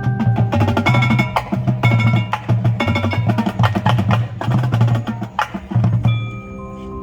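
High school marching band percussion playing a loud, busy passage of rapid drum strokes over pulsing low bass notes. About six seconds in it thins out into softer, ringing mallet keyboard tones.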